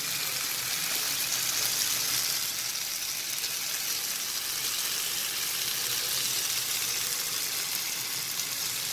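A whole tandoori-marinated chicken sizzling steadily in a hot pan, frying in its marinade's own oil with no oil added.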